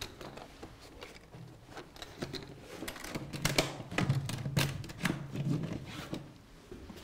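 Aluminium instrument carrying case being packed and shut: the infrared thermometer set into the case, the lid closed and the case handled, giving a run of clicks and knocks that is loudest around the middle.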